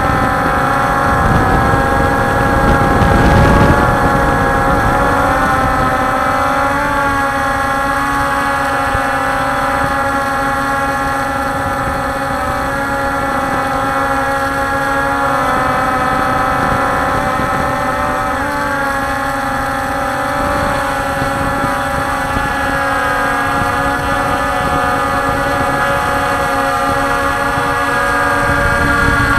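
Multirotor drone's electric motors and propellers whining steadily, several pitches together that drift slightly up and down as it flies, with a brief louder rush of noise about three seconds in.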